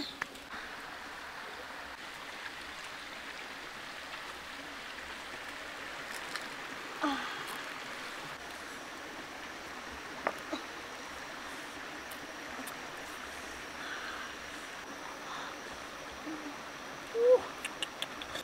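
Steady rushing of a rocky stream, with a few brief pitched sliding sounds over it, the loudest near the end.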